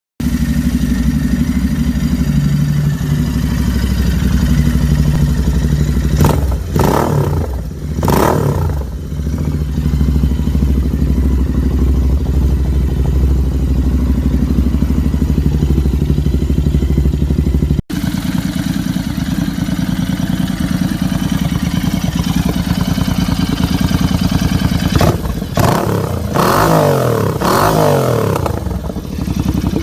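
Royal Enfield 650 parallel-twin engine running through an aftermarket Diabolus exhaust. It idles steadily with two quick throttle blips early on. After a cut it idles again, then gives a run of several short revs that rise and fall near the end.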